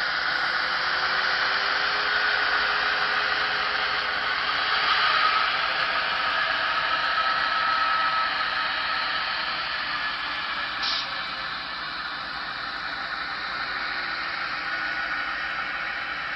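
N scale model freight train rolling past on the layout: a steady hissing rattle of the cars' wheels on the track, with one brief tick about eleven seconds in.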